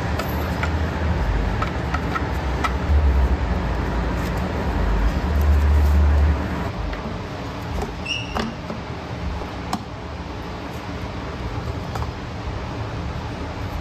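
Rubber and plastic engine intake parts being handled and pushed into place: rubbing, a low rumbling in the first half, scattered light clicks and knocks, and a brief squeak about eight seconds in.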